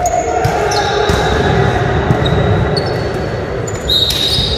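Game sounds of indoor volleyball echoing in a large gym: the ball being played and sneakers squeaking on the sports floor, with short high squeaks coming and going.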